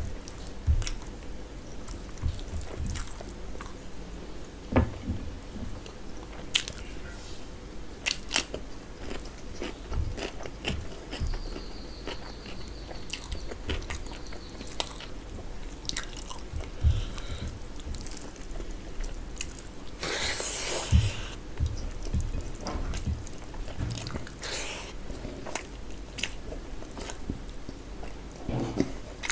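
Close-up eating sounds of a person eating rice and mutton curry by hand: wet chewing and mouth noises with scattered small clicks, and a brief louder rustle about twenty seconds in.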